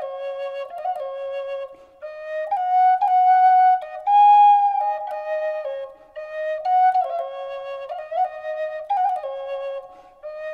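Solo flute music: a slow melody of held notes in phrases, with short breaks between them.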